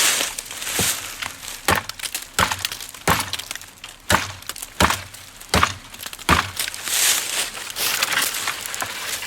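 Hatchet head chopping into green wood with repeated swings, about one sharp chop every three-quarters of a second.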